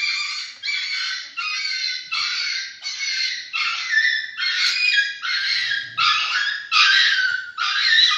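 Puppies whining, a continuous string of short, high-pitched cries about two a second.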